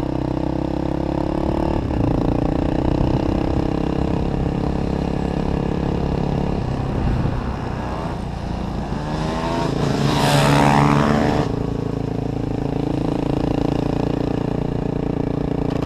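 Engine of a vehicle lapping a race circuit, heard from onboard: running steadily under power, its pitch dropping a step about 2 and again about 4 seconds in, easing off around 7 seconds, then revving up with a loud rushing burst around 10 to 11 seconds before settling back to a steady run.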